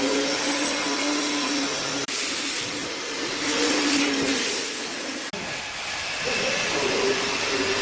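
Woodworking power tools running steadily with a hissing rush and a low whine, breaking off abruptly and starting again about two seconds and five seconds in.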